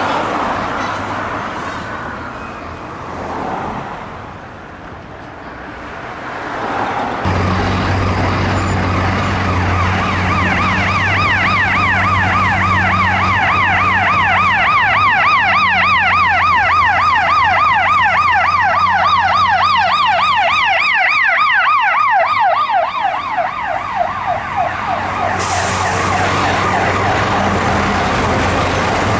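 A fire engine's siren trails away, then about seven seconds in a Chicago Fire Department ambulance's electronic siren takes over in a fast yelp, sweeping up and down several times a second over a steady low hum. Near the end the yelp fades, leaving traffic noise.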